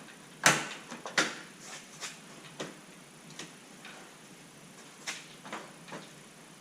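Hard plastic knocks and clicks from a pickup-truck grille being handled and pushed into its mounting slots. Two loud knocks come about half a second and just over a second in, followed by several fainter taps and clicks.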